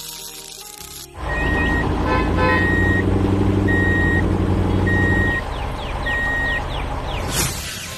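A truck's diesel engine rumbling, with a reversing alarm beeping five times about a second apart. This is a construction-vehicle sound effect. Background music plays for the first second before the engine cuts in.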